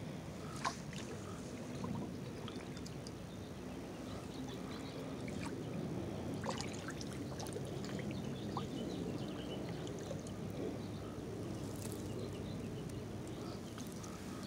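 Pond water sloshing and trickling as a metal pole probes it, with scattered small clicks.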